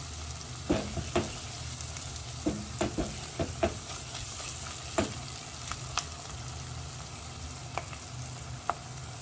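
Vegetable stew sizzling in a non-stick aluminium pot while it is stirred, the utensil knocking against the pot about a dozen times, most often in the first four seconds.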